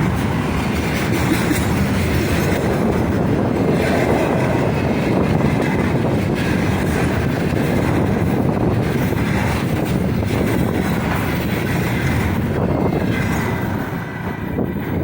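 Freight train wagons rolling past at speed: a steady rumbling clatter of wheels over the rails with some wheel squeal. The noise thins and drops off near the end.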